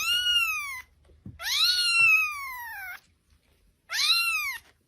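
A cat meowing three times, each call rising then falling in pitch; the middle meow is the longest, about a second and a half.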